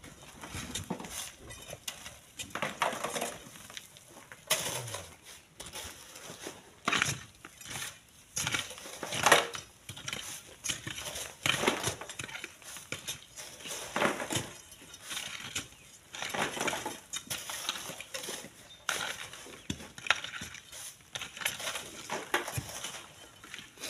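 Manual sand mining with hand tools: an iron bar prying loose volcanic sand from a cliff face and metal tools scraping through sand and gravel. Irregular gritty scrapes and knocks come every couple of seconds.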